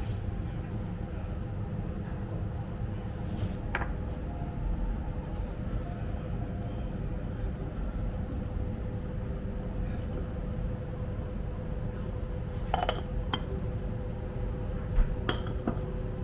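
A few sharp clinks of ceramic tableware as a porcelain pot's lid and small ceramic dishes are handled, the loudest a ringing clink about three-quarters of the way through. A steady low hum runs underneath.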